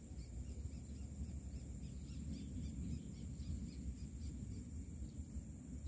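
Wind rumbling on the microphone, with a bird giving a rapid series of short high chirps, about four a second, that fade out about four seconds in.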